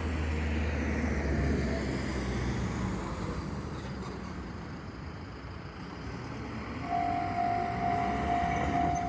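Low engine rumble from a vehicle that fades over the first few seconds; about seven seconds in, the level crossing's warning bell starts ringing with a loud, steady high tone, the signal that a train is approaching.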